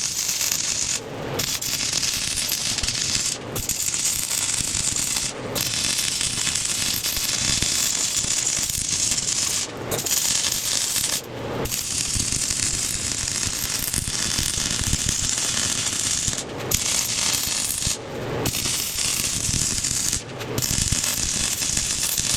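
MIG welder crackling steadily while welding a bolt into a thick steel puck, with short breaks every few seconds as the arc stops and restarts.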